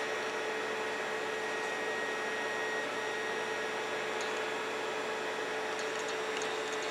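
Filament 3D printer running mid-print, its stepper motors driving the extruder with a steady hum and a constant whine.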